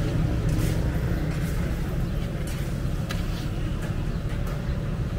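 Street ambience: a steady low traffic rumble with faint voices and a few short sharp clicks.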